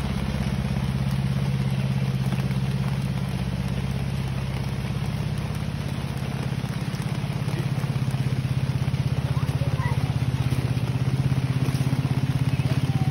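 Small tractor engine running steadily at a constant speed, a little louder in the second half.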